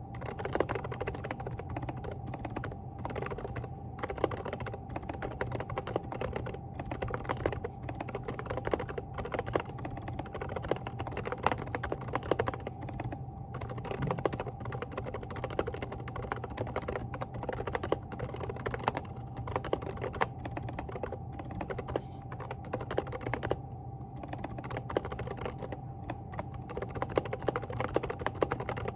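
Continuous typing on a Groovestone GV10 mechanical keyboard with hand-lubricated silent Coral switches (38 g): a steady stream of soft, quick key presses. A faint steady hum sits underneath.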